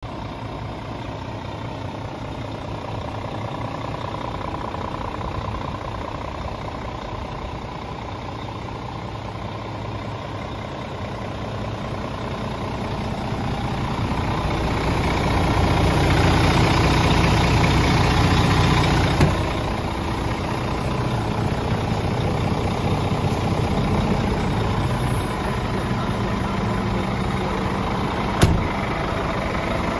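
Scania G410's diesel engine idling steadily, growing louder midway and easing off again, with one sharp click near the end.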